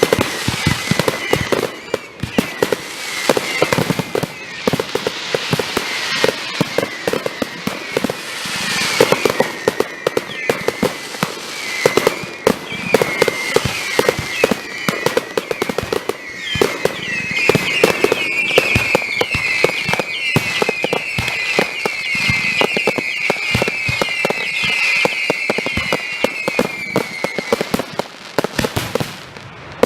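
Consumer fireworks finale: a dense, continuous barrage of bangs and crackling. Through the second half, a rapid run of high whistling tones rides over the bangs.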